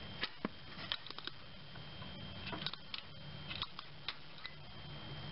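Scattered, irregular light metallic clicks of a quarter-inch drive ratchet and 5.5 mm socket working a small valve cover bolt whose head has stripped out.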